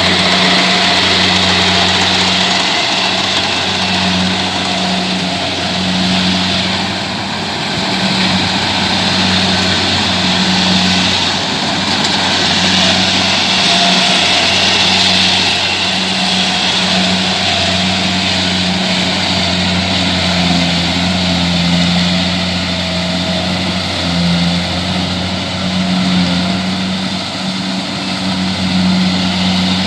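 Kubota DC70 combine harvester's diesel engine running steadily, a loud continuous drone that rises and dips slightly in loudness as the machine works.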